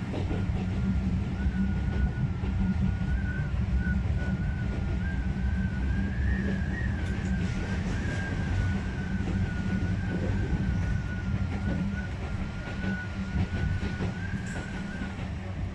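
Narrow-gauge electric train running along the track, heard from inside the driver's cab: a steady low rumble with a high whine that rises a little in pitch midway, then falls back and fades out near the end.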